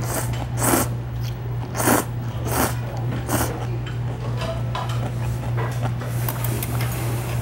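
Ramen noodles slurped in about five quick, noisy pulls over the first three and a half seconds, then quieter chewing. A steady low hum runs underneath.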